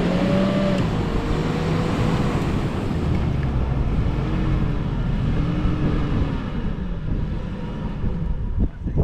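Off-road vehicle engine revving hard under load, the revs swelling up and down several times, over a steady rush of spinning tyres and sand: a vehicle stuck in sand being pulled out with a tow strap.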